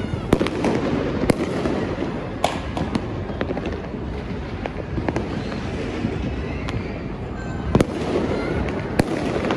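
Many fireworks going off across the city at once, a continuous mass of distant crackling and booming bursts, with about five louder, sharp bangs standing out.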